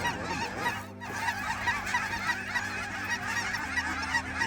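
A large flock of geese honking all at once, many short overlapping calls, as the birds circle and drop into a decoy spread. There is a brief break in the calling about a second in.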